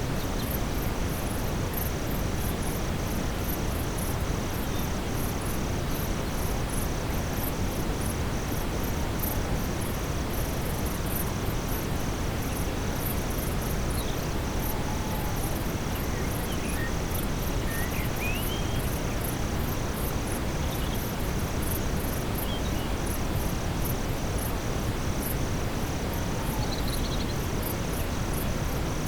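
Steady brown noise, a deep even hiss, under a nightfall forest recording of chirping night insects: one high pulsing about three times a second and others trilling higher still. A few faint short chirps sound around the middle.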